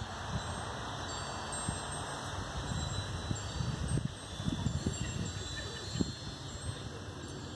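Wind chimes ringing with several steady high tones, over wind rumbling on the microphone and a few soft low bumps.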